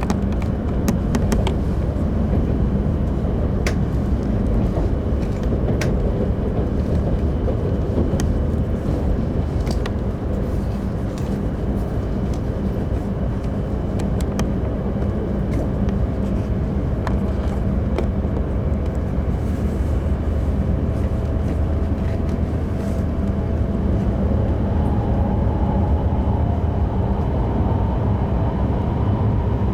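Tohoku Shinkansen train running: a steady rumble with scattered light clicks, and a faint whine that climbs in pitch near the end.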